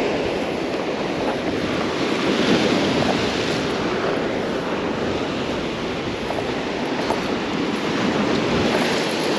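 Ocean surf washing onto a rock revetment: a steady rush that swells and eases, with wind buffeting the microphone.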